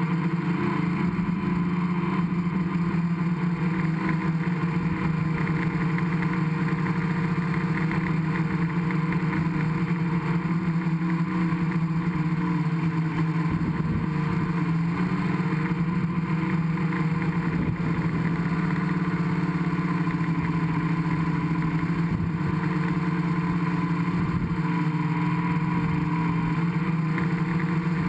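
Gaui 500X quadcopter's electric motors and propellers running steadily in flight, heard from the camera on board: a constant hum and whine with no break.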